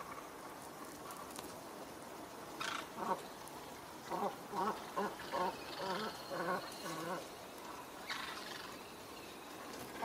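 Ducks quacking on the river: one call about three seconds in, then a quick run of about eight quacks, and another call near the end, over a faint steady background.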